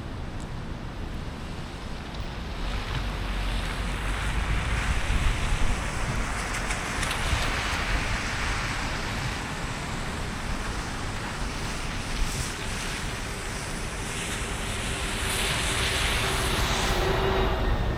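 Car driving on a rain-wet street: a steady low road rumble with tyre hiss and spray that swells twice, about halfway through and again near the end.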